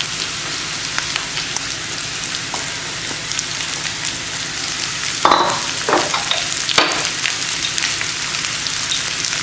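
Hot oil sizzling in a frying pan as chopped carrots and green beans are tipped in and stirred with a wooden spatula: a steady hiss, with a couple of short clatters about five and seven seconds in.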